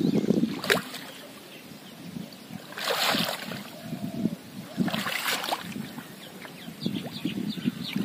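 Pond water sloshing and splashing as a person wades through knee-to-thigh-deep water, legs pushing through the water and water-lily pads. Three louder splashes come roughly two seconds apart.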